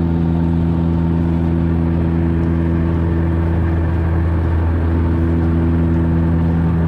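A steady engine drone holding one constant speed: a low hum with a few steady tones and a wash of noise above it.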